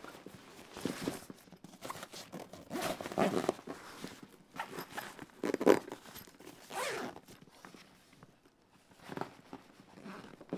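Fabric rustling as a jacket is stuffed into a soft-sided backpack cooler bag, then the zipper on the bag's top compartment being pulled shut in several short pulls.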